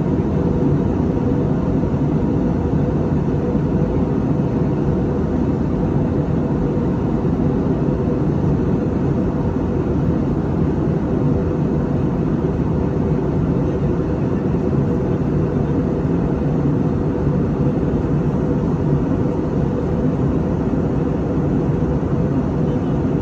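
Airliner jet engines and rushing air making a steady, unchanging rumble with a faint constant hum.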